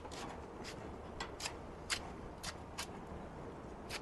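Bottom air-vent damper of a small Weber Smokey Mountain smoker being worked open by hand: a string of about nine sharp, irregular metal clicks and scrapes.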